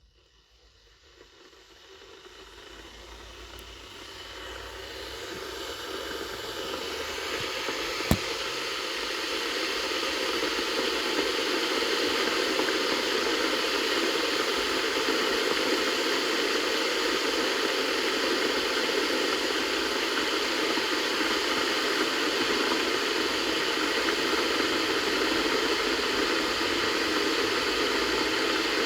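Kettle heating water toward the boil: a rushing hiss that swells over the first ten seconds or so, then holds steady. One sharp click about eight seconds in.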